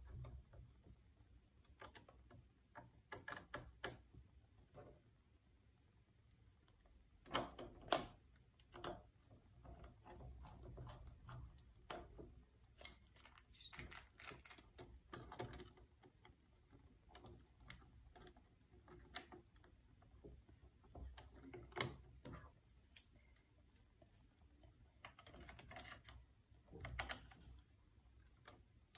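Faint, irregular clicks and taps of hard plastic laptop casing parts being handled by hand, with louder clusters of clicks about eight seconds in and again near the end.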